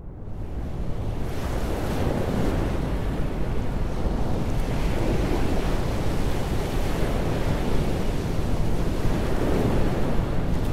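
Steady rush of sea water churning in a ship's wake, with wind buffeting the microphone; it fades in over about the first second.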